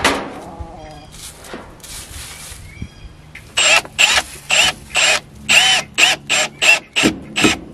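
Cordless drill driving a screw into a wooden post to fasten a PVC pipe fitting with a conduit clamp. From about three and a half seconds in it runs in short trigger bursts, about two a second, each whine rising and falling in pitch.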